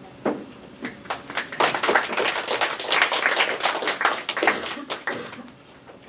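A small group of people clapping: a few scattered claps that quickly build to dense applause, then thin out and stop shortly before the end.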